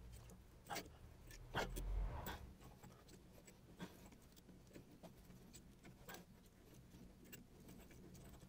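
Faint, scattered clicks and ticks from a brake caliper piston wind-back tool being turned by hand, screwing a rear caliper piston back into its bore. There is a brief low rumble about two seconds in.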